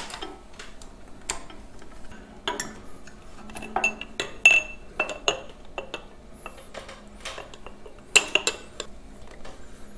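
Glass sediment bowl and metal bale of a diesel fuel water trap clinking and tapping against the metal trap housing as they are worked into place by hand: scattered light clicks, a few with a brief ring.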